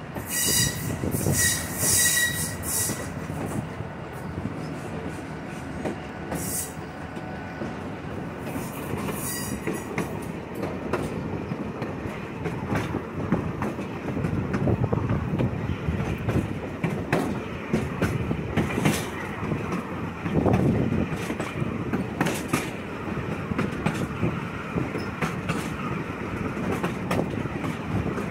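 Railroad passenger car rolling along the track, a steady rumble with frequent clacks from the wheels over the rails. A thin wheel squeal rings out during the first few seconds, with shorter squeals around six and nine seconds in.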